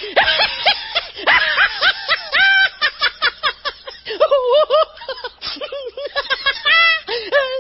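High-pitched human laughter: fast runs of repeated 'ha-ha-ha' pulses, broken by short pauses between bouts.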